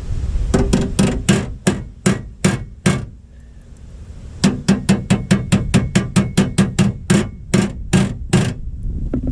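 Hammer striking sheet-steel truck body panel in quick, even blows, about four a second, each with a short metallic ring. There are two runs of blows with a pause of about a second and a half between them, knocking a replacement rocker and cab-corner panel into line.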